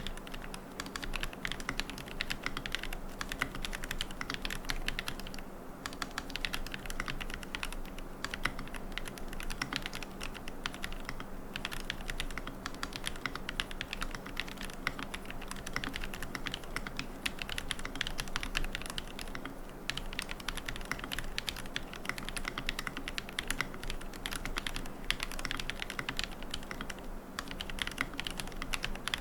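Continuous fast typing on a QK75N mechanical keyboard with Gateron Moon Landing switches, MilkyWay Poker keycaps and a carbon plate with no foam: a dense stream of key clacks with brief pauses every six to eight seconds.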